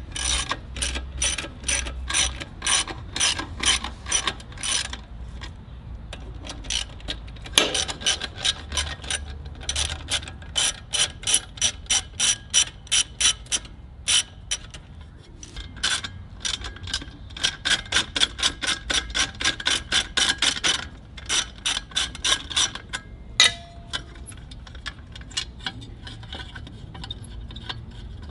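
Hand socket ratchet clicking as 10 mm bolts are turned, in runs of about three clicks a second broken by short pauses.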